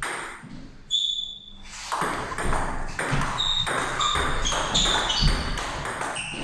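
Table tennis ball hit back and forth: short, sharp pings of the celluloid/plastic ball on bats and table, one about a second in, then a quick run of hits from about three seconds in.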